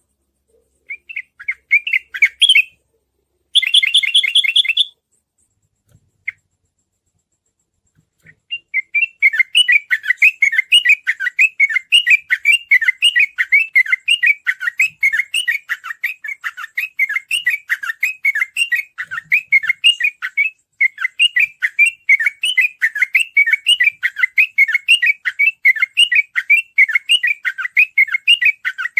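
Sooty-headed bulbul (trucukan) singing. A few short phrases and a harsh buzzy call come first, then a pause of a few seconds. From about nine seconds in it sings a rapid, nearly unbroken run of chirps: the fast 'ropel' song used to provoke other trucukan into singing.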